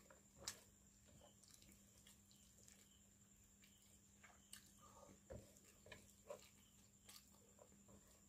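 Faint, scattered wet squishes and small clicks of a bare hand mixing rice into fish curry, over a steady faint hum.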